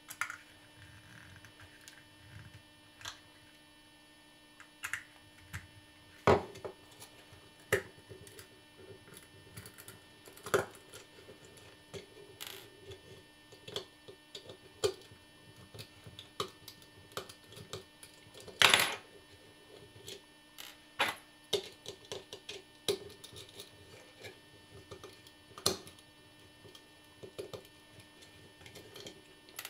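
Small screwdriver backing out the three tiny screws of an Apple Mighty Mouse's scroll ball assembly: scattered clicks and light scrapes of metal on the screws and the plastic housing, over a steady electrical hum.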